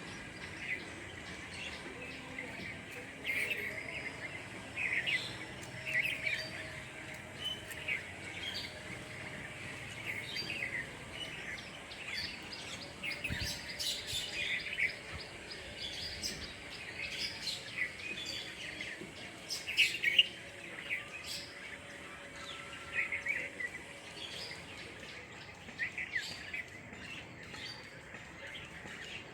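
Small birds chirping: many short, sharp calls in quick succession, some overlapping, over a faint steady background hiss.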